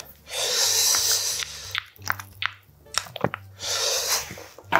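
Two long, loud breaths through the nose, with a few light clicks of a spoon against a glass bowl between them as a seasoned stonecrop salad is mixed.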